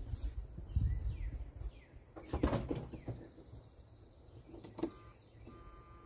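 Footsteps and handling noise as someone gets to the cab of a 1982 GMC pickup, a scrape and click of the truck's door, then a steady in-cab warning tone starting near the end as the ignition is switched on, just before cranking.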